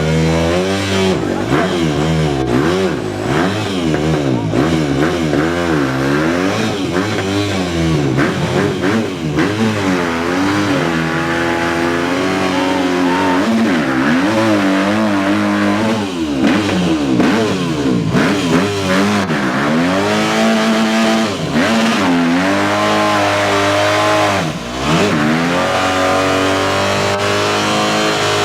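Off-road vehicle's engine revving up and down again and again under load as it works through a mud hole, its pitch swinging up and falling every second or two, held steadier for a few seconds near the end.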